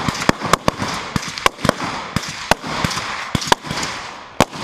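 Rifle gunfire: a run of about fifteen sharp shots at uneven spacing, several a second, with echo trailing each.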